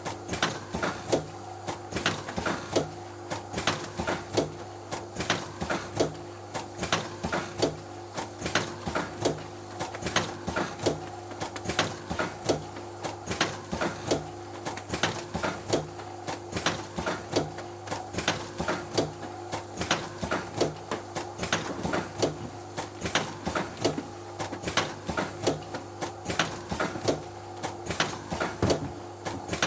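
Milk sachet filling and sealing machine running: a fast, regular clatter of sharp clicks, a few a second, over a steady mechanical hum as plastic milk pouches are filled and sealed.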